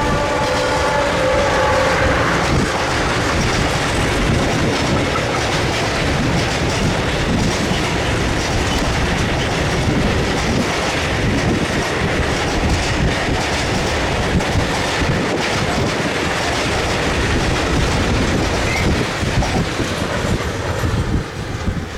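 A train passing close by: a loud, steady rush of wheels and wagons with clickety-clack over the rail joints. The tail of a horn blast fades out in the first two seconds, and the noise drops away near the end as the last car passes.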